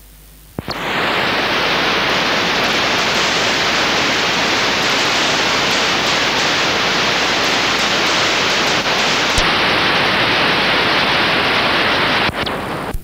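Steady static hiss from a blank, signal-less stretch of an old video cassette. It starts suddenly about half a second in, has a single click partway through, and cuts off near the end.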